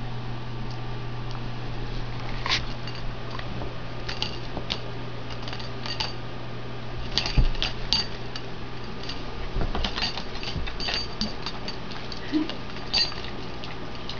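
Scattered light metallic clinks and taps, a few louder ones about halfway and near the end, over a steady low hum.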